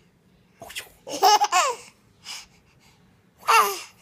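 Baby laughing in short bursts of high, falling squeals: a loud burst about a second in, a faint one after it, and another loud burst near the end.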